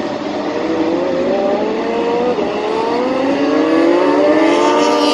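Moto2 race bikes with three-cylinder Triumph 765 engines accelerating hard down the straight, their engine pitch climbing steadily. About two and a half seconds in, the pitch drops suddenly at an upshift, then climbs again.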